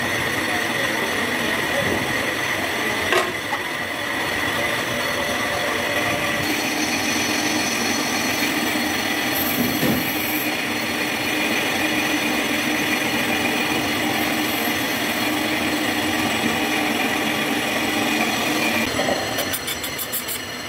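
Metal-turning lathe running steadily as its cutting tool turns a disc-brake part, with a steady high whine over the machine noise and a sharp click about three seconds in.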